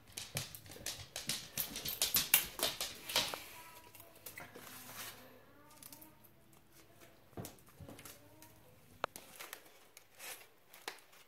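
Hands handling and fixing a small homemade toy car of paper and tape: rustling and quick light clicks, busiest in the first few seconds and sparser after.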